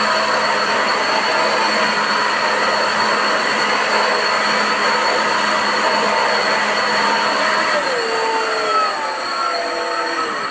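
80 mm water-jet thruster running hard in a test tank: a steady high motor whine over the rush of churning, spraying water. From about eight seconds in, the whine falls in pitch and the water noise eases as the thruster slows down.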